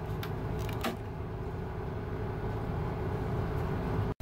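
Steady low hum of an idling diesel locomotive heard inside its cab, with a few small clicks in the first second as the rotary mode selector switch is turned.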